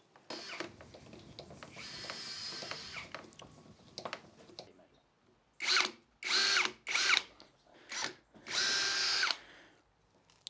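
Cordless drill/driver driving screws into a door lever set: a quieter steady whir in the first three seconds, then five short loud runs of the motor, each rising in pitch, the last the longest.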